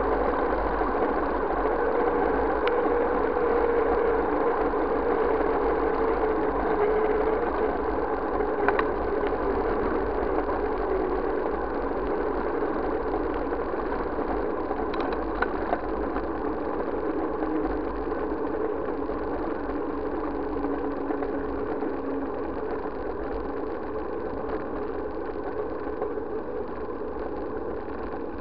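Steady ride noise of a bike rolling along a paved road, picked up by a bike-mounted action camera: a continuous hum whose pitch drifts slowly lower, with a couple of faint brief rattles.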